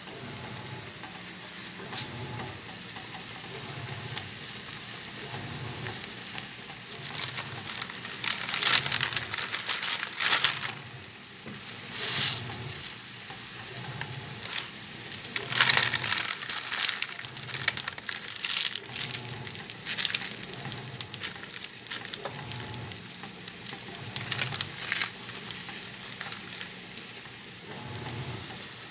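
Water boiling hard around a block of instant noodles in a stainless steel saucepan on a gas burner: a steady crackling bubble with a few louder surges midway.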